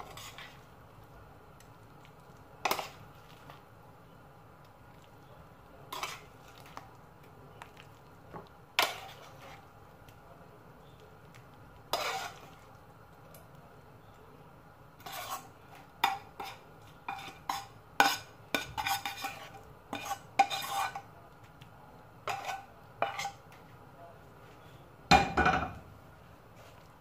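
Metal spoon scraping and clinking against a frying pan as food is spooned out onto a plate. The clinks come every few seconds, then in a quicker run in the second half, with one heavier thump near the end.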